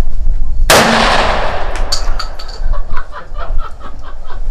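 A single gunshot fired at a distant target about three quarters of a second in, followed by a long echo that fades over the next second or so.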